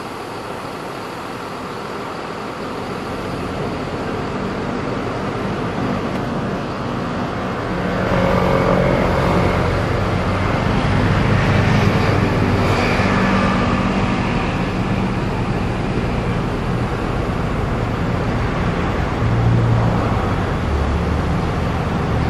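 Traffic noise from passing vehicles, a steady rumble that grows louder about eight seconds in and stays up.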